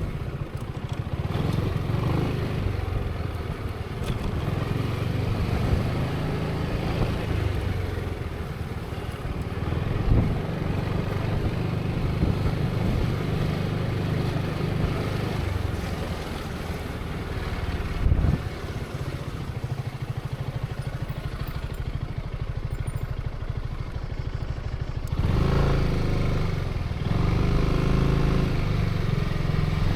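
Zontes 350E's single-cylinder engine running at low road speed, with two short knocks along the way; about three-quarters of the way through the engine picks up revs and grows louder.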